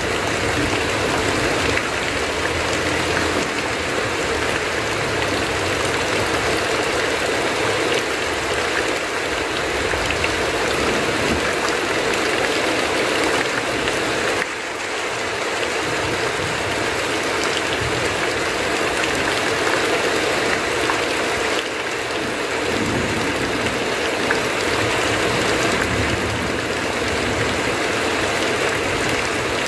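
Heavy rain drumming steadily on a tin roof, with runoff pouring off the eaves and a low rumble underneath.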